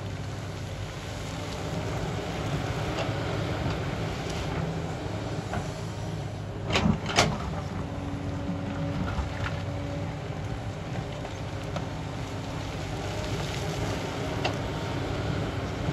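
Sany crawler excavator's diesel engine running steadily as the machine digs rock, with stones knocking against the steel bucket: two sharp knocks about seven seconds in, half a second apart, are the loudest, with lighter clicks scattered around them.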